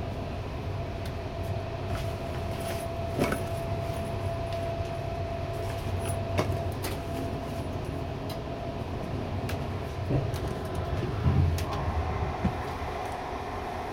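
Train of double-deck coaches hauled by a DB class 218 diesel-hydraulic locomotive running along the line: a steady low rumble with a steady hum over it, scattered sharp clicks, and a few heavier knocks near the end.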